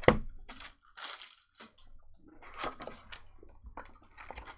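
Crinkling and rustling of trading-card pack wrappers and cards being handled, in short irregular rustles, with a sharp tap at the very start.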